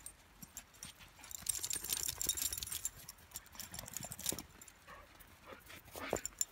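Footsteps crunching in snow, from dogs' paws and a person's boots, in an uneven patter, with a denser crunching stretch between about one and three seconds in.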